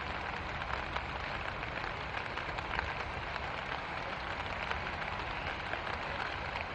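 Rain falling steadily: a dense, even hiss with a fine crackle of drops.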